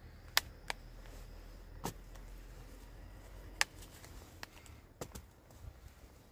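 Scattered short, sharp clicks and snaps, about seven at irregular intervals, as green papaya fruits are grasped and twisted on the tree.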